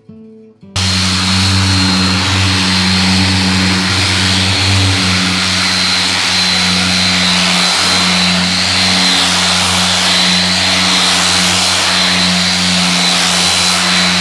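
Hand-held power sander running steadily against a cured fiberglass boat hull, with a constant high whine over a low hum. It starts suddenly about a second in. It is scuffing up the surface so that new laminate will bond better.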